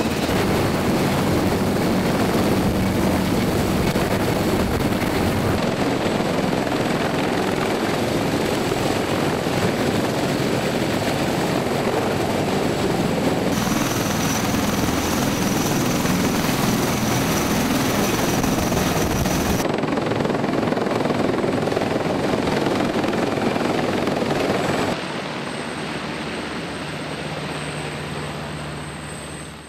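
Helicopter rotor and engine noise running steadily across several spliced shots, with an abrupt change in tone at each cut. It drops noticeably quieter about five seconds before the end, then fades out.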